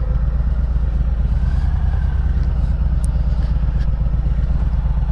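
Harley-Davidson Softail Slim's Milwaukee-Eight V-twin running steadily, its firing pulses even and low, with no revving.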